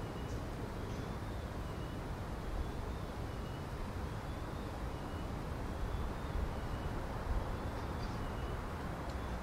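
Steady low rumble of outdoor urban background noise, with a faint high-pitched tone that slowly rises and falls over and over, and a few faint clicks.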